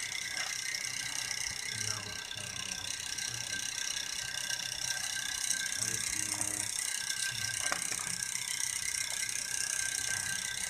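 Steady background hiss with faint high-pitched steady tones and low muffled murmurs here and there, with a few sharp clicks about three quarters of the way in.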